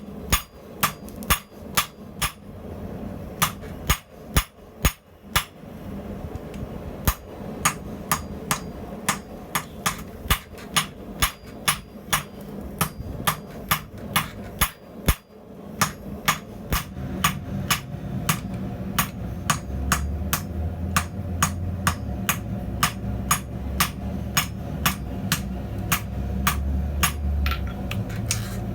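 Blacksmith's hand hammer striking hot steel on an anvil in a steady rhythm, about two to three blows a second, with a brief pause about halfway. A low steady hum comes up under the blows in the second half.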